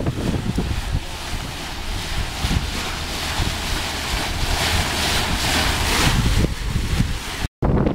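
Wind buffeting the microphone over the rush of water beneath a square-rigged tall ship's bow, in gusts. The sound cuts out briefly near the end.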